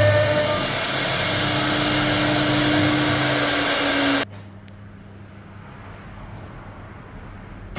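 CNC router running, a steady whine over a loud rushing noise, which cuts off abruptly about four seconds in, leaving only a faint low hum.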